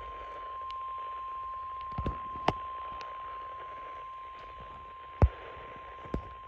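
NOAA Weather Radio warning alert tone, a single steady 1050 Hz beep, coming through a Midland ER310 weather radio's speaker over static hiss; it signals that a warning broadcast is about to follow. A few sharp pops of static cut through, the loudest about five seconds in.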